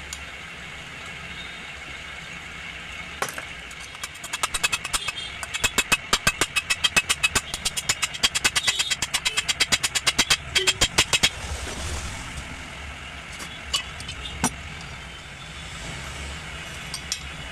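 Rapid hammer strikes, about six a second for some seven seconds, driving a new crankshaft bearing into a chainsaw's crankcase, with a few single knocks before and after.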